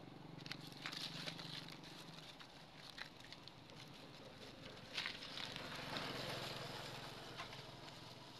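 Dry fallen leaves rustling and crackling in scattered clicks as macaques walk over leaf litter, with one sharper crackle about five seconds in. A faint low engine-like hum runs through the first two seconds.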